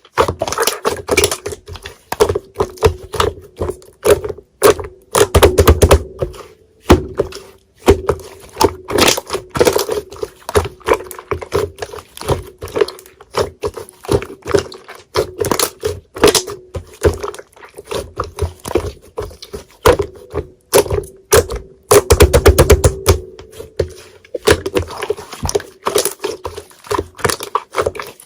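Slime being worked by hand: dense, rapid crackling clicks and pops, with louder squelching squeezes about five and twenty-two seconds in.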